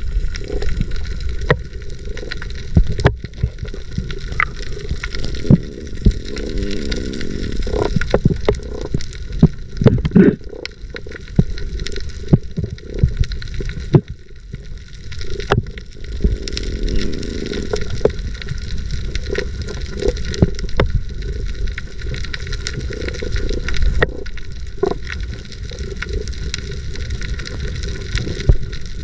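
Muffled underwater sound through a camera's waterproof housing: a steady rush and gurgle of water with many scattered sharp clicks and knocks.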